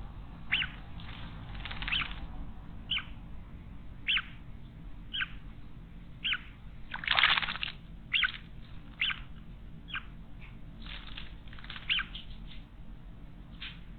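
Small wild birds bathing in a stone garden water basin: a string of short, irregular splashes and wing flutters, with a longer splashing burst about halfway through.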